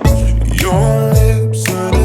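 Background music: an instrumental stretch of a rhythm-and-blues-style song with a steady beat, with drum hits and sliding notes.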